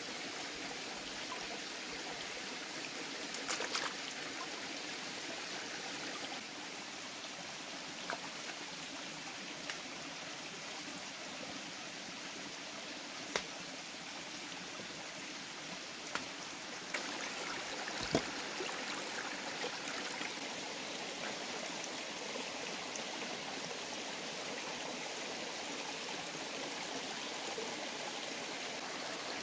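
Steady rush of running water, like a stream, with a few sharp single clicks or knocks scattered through it, the loudest about 13 and 18 seconds in.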